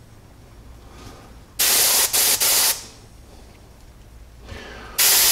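Siphon-feed airbrush with its largest (number one) tip spraying acetone in short hissing bursts: three quick bursts a couple of seconds in, and another starting near the end.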